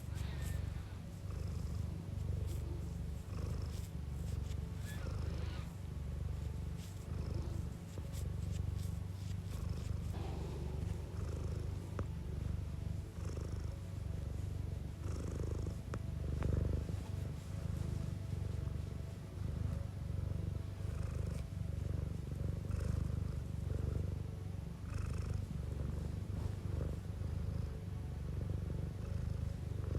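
Domestic cat purring close up, a continuous low, pulsing purr with faint small clicks above it.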